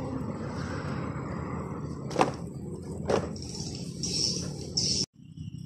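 Outdoor background rumble with two sharp knocks about a second apart. After an abrupt cut near the end, steady high-pitched insect chirring, typical of crickets.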